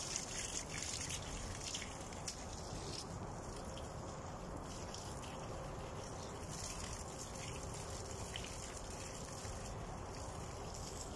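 Water running from a garden hose onto a vegetable bed, a steady noise with a few light knocks in the first second or so.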